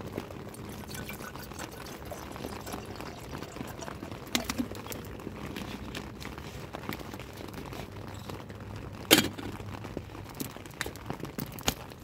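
Water pouring from a plastic bottle into an aluminium camping kettle, over a steady patter of rain on the tent. A sharp knock comes about nine seconds in, followed by several lighter clicks near the end as the kettle's lid is fitted.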